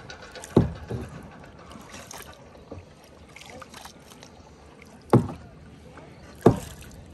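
Kayak paddle strokes: sharp splashes or knocks of the double-bladed paddles less than a second in, then twice more near the end, over a steady soft wash of water and wind.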